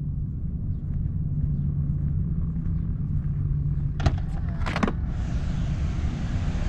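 Low, steady wind noise on the microphone. About four and five seconds in come two sharp clicks as the Tesla Model X's driver door unlatches and opens, and a steady hiss follows.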